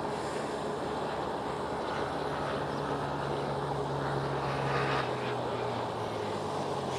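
A passing engine's steady drone: its low hum grows stronger, then drops in pitch about five seconds in.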